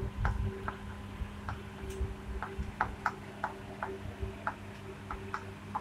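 Chalk tapping and clicking against a chalkboard as letters are written, a string of short irregular clicks over a low steady hum.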